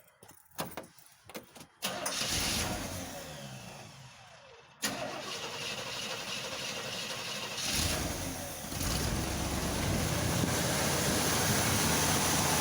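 1985 Chevy C10 truck engine being started for the first time on a newly replaced carburetor: a few clicks, then it turns over, catches about five seconds in, and keeps running steadily, growing louder towards the end.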